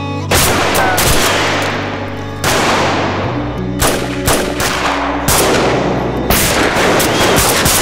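Pistol shots in a gunfight, fired at irregular intervals: some single, some in quick runs of two or three, each ringing out into a short echo. A low, sustained music score runs underneath.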